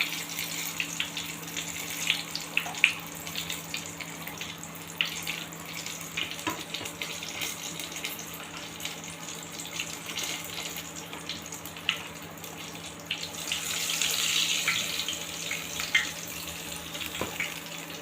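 Chicken pieces deep-frying in hot oil: a steady sizzle full of small, irregular crackles and pops.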